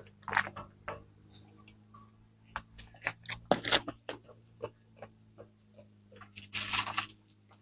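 A man crying quietly without words: short breathy sniffles and sobbing breaths, three of them stronger (near the start, about halfway, and near the end), among scattered small clicks and rustles, over a steady low electrical hum.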